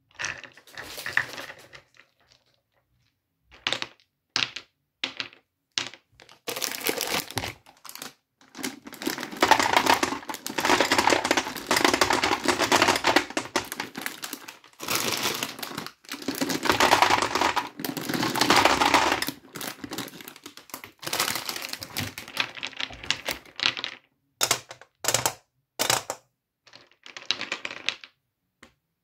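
Hard gumballs clicking and rattling against each other and a small plastic toy gumball machine: scattered single clicks at first, then a long dense clatter through the middle, then separate clicks again near the end.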